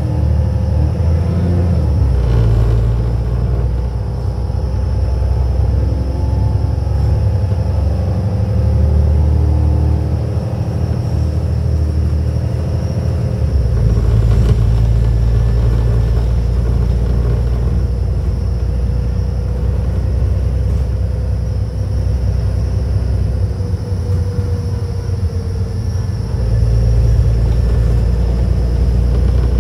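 VDL DB300 Wright Gemini 2 bus driving along, heard from inside the passenger saloon: a steady, loud engine and road rumble. The low engine note shifts audibly a few times, about two seconds in, around the middle and near the end.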